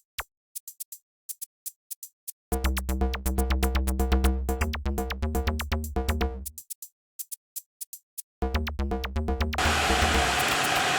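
Electronic background music: a drum-machine beat of quick ticks alone at first, then bass and synth notes coming in and dropping out. Near the end a steady hiss comes in, the electric kettle heating its water.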